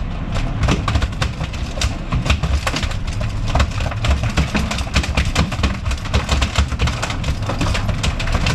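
Boat engine running with a steady low rumble, with frequent short clicks and slaps over it.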